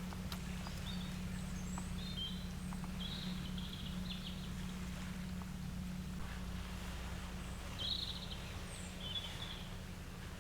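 Outdoor ambience: a steady low rumble with small birds chirping now and then, a cluster of short calls in the first few seconds and another near the end.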